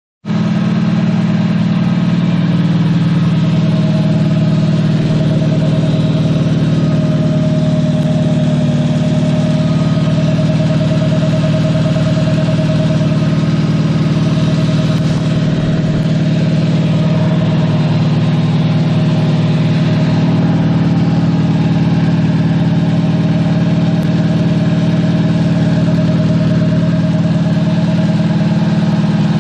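Farmall 230 tractor's four-cylinder gasoline engine running steadily, on its first run after a new front main seal.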